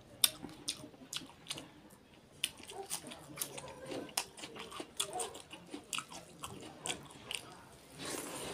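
Close-miked eating of duck curry and rice by hand: chewing with many irregular sharp wet mouth clicks and crunches, and a louder breathy rush near the end as another handful goes into the mouth.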